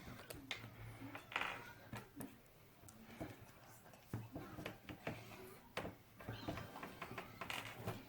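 Scattered light clicks and taps of plastic Play-Doh tools, cutters and a toy knife, knocking on a tabletop, irregular and at a low level.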